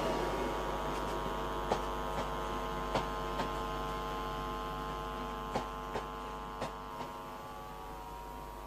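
Greater Anglia passenger coaches rolling slowly past, their wheels clicking in pairs over the rail joints, under a steady hum that fades away gradually.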